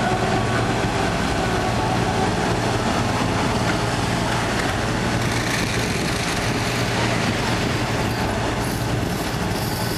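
Steady hum of the unloading machinery, the boat's crane winch and engines running. Partway through, a brailer net's load of fish and seawater pours into a truck's bed.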